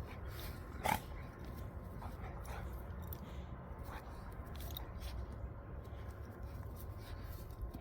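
Two dogs play-wrestling: scuffling and mouthing sounds with scattered small clicks, and one sharp snap about a second in.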